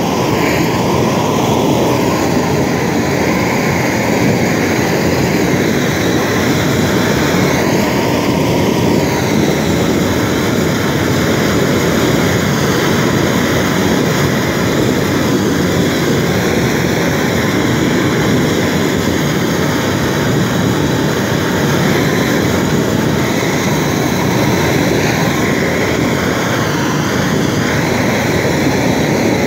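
Long-handled propane torch burning with a loud, steady rushing flame, playing over stainless steel to heat-tint it blue. Its tone shifts slightly now and then as the flame is swept across the metal.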